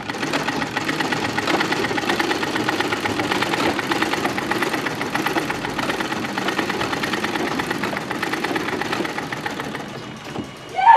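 Treadle sewing machines running steadily, needles and mechanism clattering fast and evenly. Right at the end a sudden loud cry breaks in, falling in pitch.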